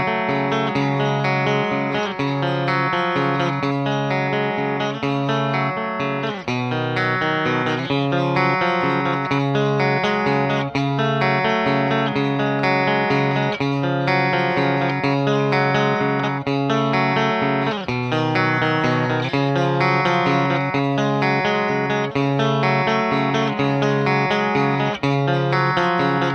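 Electric guitar playing chord and note passages on a swamp-ash Telecaster's bridge pickup, through a Fender Deluxe Reverb reissue amp picked up by a microphone. The first part is played on a thinline body with an F-hole, and partway through the guitar changes to a second, solid-style body.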